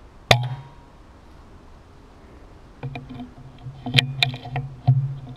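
A single sharp crack from an air rifle shot about a third of a second in. It is followed about three to five seconds in by a cluster of clicks and knocks, as of the rifle and camera being handled.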